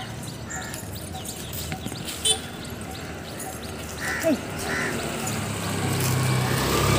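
Birds calling repeatedly, with one sharp clank about two seconds in and a low engine hum building near the end.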